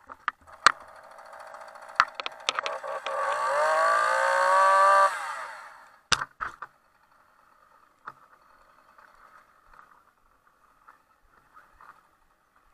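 Gas chainsaw being started: a few sharp clicks, then the engine runs and revs up with a rising pitch for about two seconds before stopping abruptly, followed by two loud knocks.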